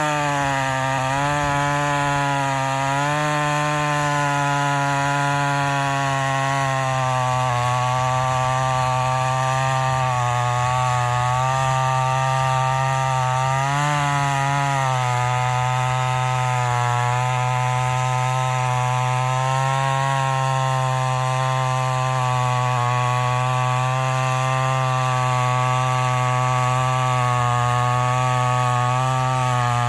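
Vintage Homelite XL-400 two-stroke chainsaw running at high revs while cutting into wood. Its pitch sags briefly a few times under the load and settles a little lower about halfway through.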